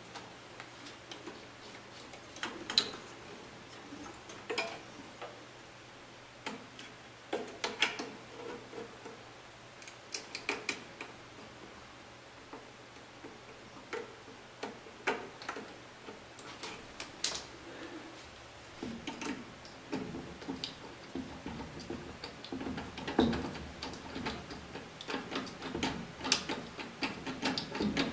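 Irregular clicks and light knocks of hands handling the wiring harness, connectors and metal parts inside an open furnace cabinet, while a new igniter is reconnected and set in place. The handling gets busier, with more rustling, in the last several seconds.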